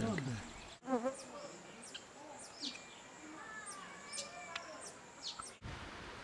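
Weaver birds calling, faint: sharp high notes that sweep downward, repeated several times, with buzzy chatter and a few wavering whistles. The calls stop suddenly about five and a half seconds in, leaving a quiet outdoor hiss.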